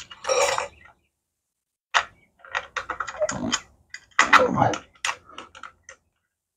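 Irregular clicking and clattering of tools and small parts being handled, in short scattered strokes and clusters with a gap of about a second near the start.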